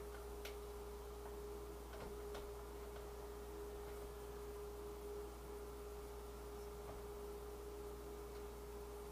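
A steady faint pure tone, like an electrical whine, over a low hum, with a few light clicks of dishes and food being handled at the counter.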